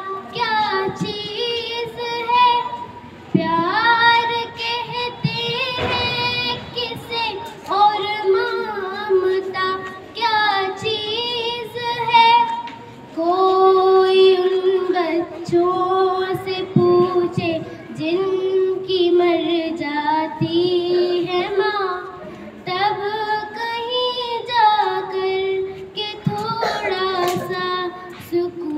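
A young girl singing solo into a handheld microphone without accompaniment, holding long notes in phrases with short breaths between them.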